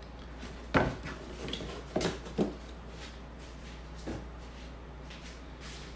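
A few separate knocks and taps as metal clamp parts and a cardboard box are handled and set down. The loudest knock comes about a second in, with others around two seconds and four seconds in, over a steady low hum.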